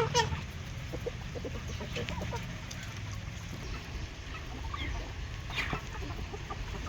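Backyard hens clucking softly and scattered while they feed, with a sharper, louder sound just after the start and another at about five and a half seconds.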